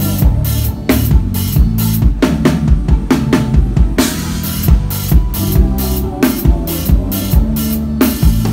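Drum kit played in a steady groove, kick, snare and hi-hat over a bass line, with a cymbal crash about four seconds in and another near the end. It is heard close from the drummer's position during a band soundcheck.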